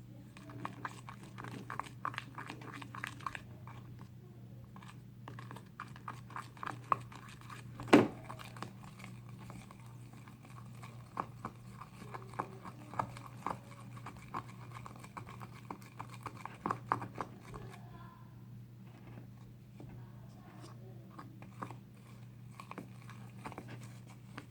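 Homemade slime of baby powder, toothpaste and water being mixed, with irregular wet squishing and small clicks, and one sharper knock about 8 seconds in, over a steady low hum.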